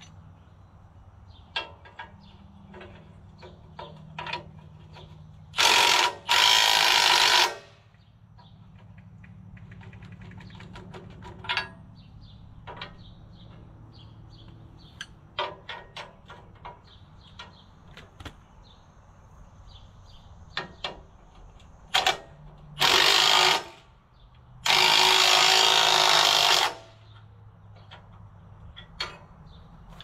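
A power tool running in short bursts as it tightens bolts on a steel cultivator: two runs about six seconds in and two more a little past two-thirds of the way through, the last one the longest. Scattered clicks and clanks of tools on metal come between the runs.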